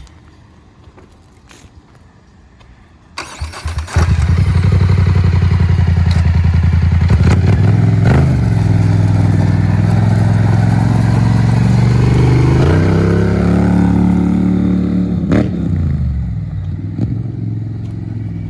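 A 2023 Polaris Scrambler XP 1000 S ATV's twin-cylinder engine, breathing through an HMF dual aftermarket exhaust, is cranked about three seconds in and catches within a second into a loud, steady idle. About twelve seconds in the engine note shifts, and over the last few seconds it fades as the quad pulls away.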